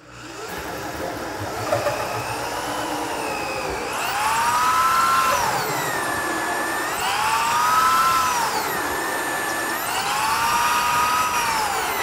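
Electric drill running a 2.5-inch hole saw with a centre pilot bit, cutting into a layered wooden desk top. The motor's whine dips and rises in pitch about every three seconds as the load on the saw changes, and it gets louder about four seconds in.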